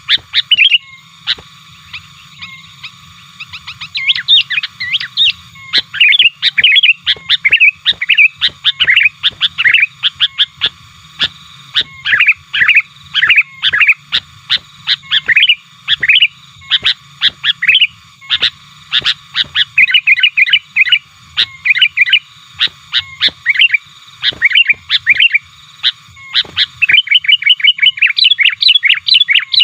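Sooty-headed bulbul (kutilang), a male, singing and calling in quick bursts of short bubbly chirps, nearly without a break apart from a pause of about two seconds near the start. It is the active, challenging call meant to press a rival, used as a lure for wild bulbuls.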